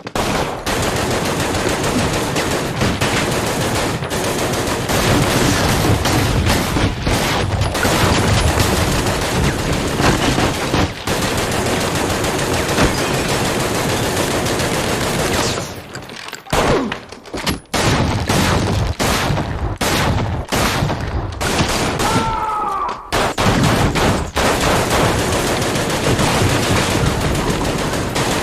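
Sustained heavy gunfire from a movie battle scene: dense automatic fire from several guns at once, nearly continuous, with a few short lulls about two-thirds of the way through.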